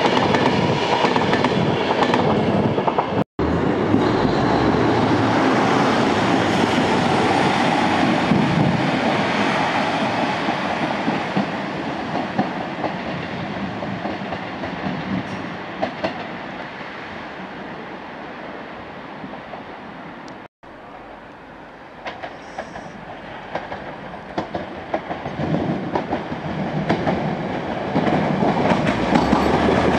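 Passing trains: loud at first, then slowly dying away over about twenty seconds. A diesel multiple unit then grows louder as it approaches near the end. The sound cuts out sharply twice, about three seconds in and about twenty seconds in.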